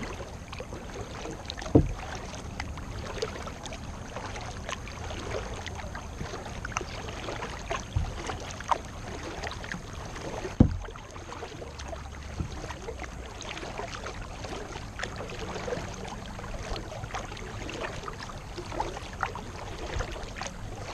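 Kayak paddling: paddle blades dipping and splashing in the water stroke after stroke, with a few sharp knocks, the loudest about two seconds in and just before eleven seconds.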